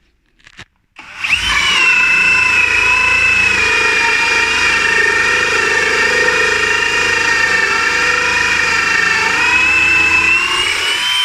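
Bosch GSB 18V-150C cordless brushless drill in second gear, driving a 44 mm hole saw into wood. It starts about a second in and runs steadily under load with a whining motor note. The pitch sags a little through the cut, rises again near the end, and then stops.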